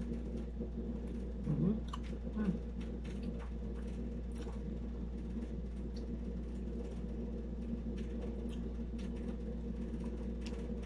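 Quiet eating sounds: chewing and small mouth and finger clicks of people eating by hand, over the steady hum of an air conditioner. A short low voice-like sound comes twice about two seconds in.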